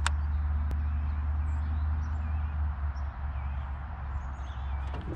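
A steady low rumble, with a few faint, short bird chirps scattered above it and two sharp clicks in the first second.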